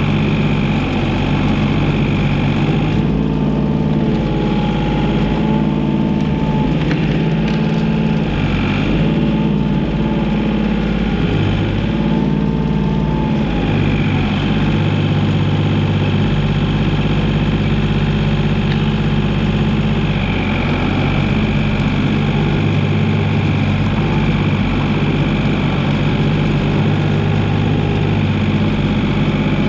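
Komatsu PC28 mini excavator's diesel engine running steadily at working revs, with a wavering whine that rises and falls between about three and fourteen seconds in.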